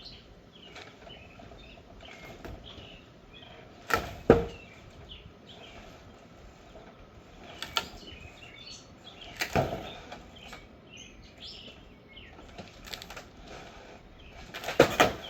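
Sharp knocks and thumps of demolition work on an old, weakened wooden structure, coming every few seconds: a loud double knock about four seconds in and a quick cluster near the end.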